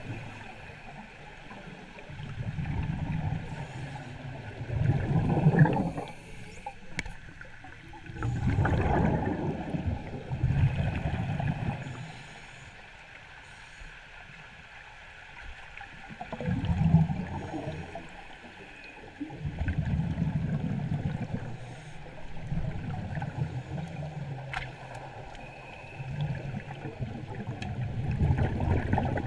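Muffled water churning and bubbling around a camera held underwater, rising and falling in swells every few seconds.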